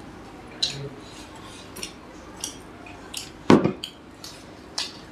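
Hands tearing crisp masala dosas and handling them on a foil-covered table: scattered sharp crackles and taps about once a second, with one louder knock about three and a half seconds in.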